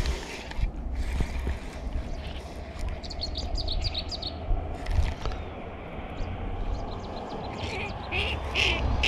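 Wind rumbling on the microphone throughout. Over it come two runs of short, rapid, high-pitched bird calls, one about three seconds in and another near the end.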